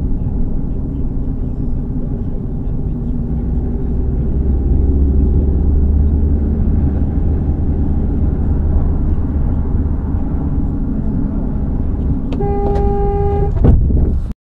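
Van's engine and road noise heard from inside the cab, a steady low rumble. Near the end a car horn sounds for about a second, then a sudden loud bang as another car hits the van's side.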